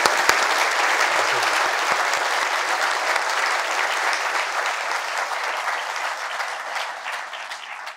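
A large audience applauding, with a few sharp single claps at the start that build into steady, dense clapping, which slowly fades toward the end.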